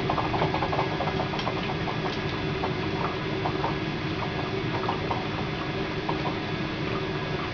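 Oxyhydrogen (HHO) torch fed by a water electrolyzer, burning with a steady hiss and low rumble while it heats the metal. Frequent small crackles sound through the first few seconds and then thin out.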